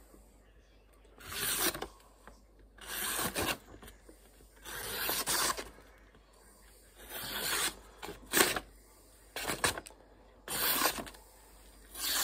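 A freshly sharpened Fallkniven F1 knife with a VG10 steel blade slicing through a sheet of paper, about seven separate strokes a second or two apart, each a short rasping hiss. This is a paper-cutting test of the new flat-ground edge.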